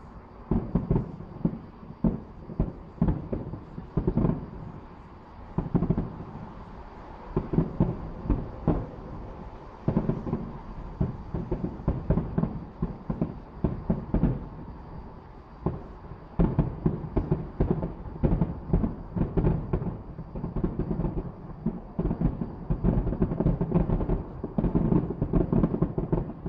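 Aerial fireworks shells bursting in a rapid, irregular run of booms, coming thicker and almost without pause toward the end.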